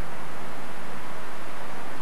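Steady even hiss with a faint low hum under it.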